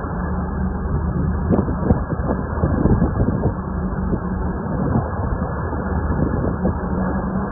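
A steady low engine drone under rushing wind noise, dull and muffled, with irregular swells in loudness.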